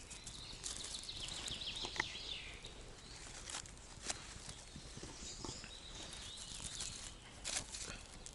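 Small fire of dry leaves crackling, with irregular sharp snaps and pops. A songbird sings a quick trill in the background about a second in and again about five seconds in.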